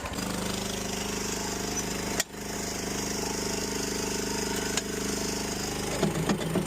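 Small gasoline engine of a cheap Chinese mini skid steer running steadily. There is a sharp click about two seconds in and a few knocks near the end.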